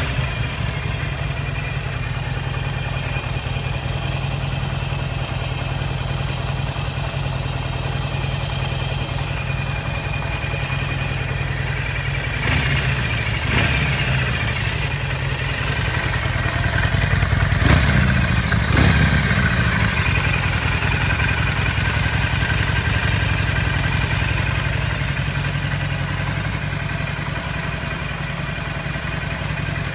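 2013 Harley-Davidson XL1200X Forty-Eight's 1200 cc air-cooled V-twin, freshly started, idling steadily on the enricher with an RSD air cleaner and running cleanly with no odd noises. The throttle is blipped once about halfway through and twice more a few seconds later, each rev rising and falling before it settles back to idle.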